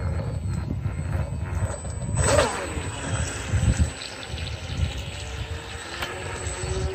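Brushless electric motor of a Volantex Vector SR48 RC speedboat whining as the boat runs across the water: its pitch bends about two seconds in and settles into a steady whine near the end. A heavy low rumble lies under it throughout.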